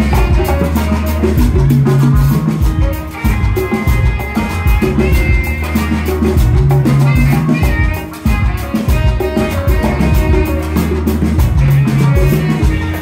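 Live band playing Latin-style music: hand-played congas over electric bass, electric guitar and keyboard, with a busy percussive rhythm and sustained low bass notes.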